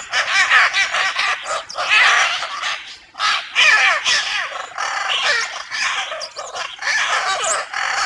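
Macaw squawking: a continuous run of harsh, raspy calls, with a short break about three seconds in.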